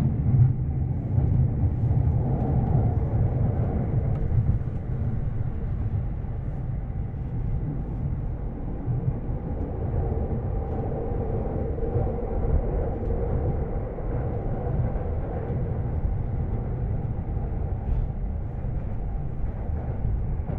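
Electric commuter train running on its rails, heard from inside the passenger car: a steady low rumble of wheels and running gear.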